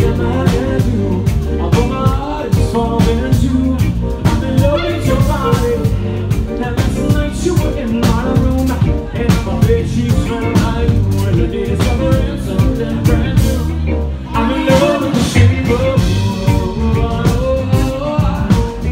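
Live band playing an upbeat song with a steady drum-kit beat and bass, with singing over it.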